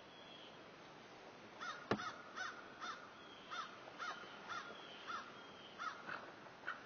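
A bird calling in a series of about a dozen short calls, spaced roughly half a second apart, beginning about a second and a half in. A single sharp click near two seconds in is the loudest sound.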